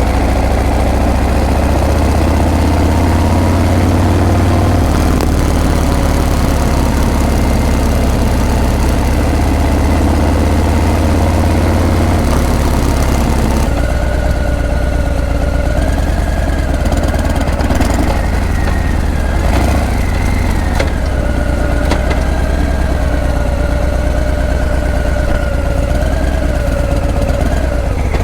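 Harley-Davidson Breakout's V-twin engine running through its exhaust, a steady deep note, with a change in the sound's character about halfway through.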